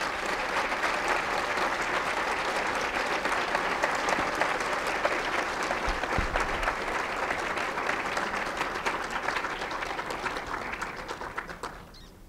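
Audience applauding at the end of a lecture, a steady mass of clapping that dies away near the end.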